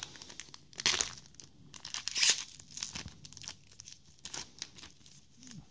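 Foil trading-card booster pack being torn open and crinkled by hand: a string of short rips and crackles, the loudest about two seconds in.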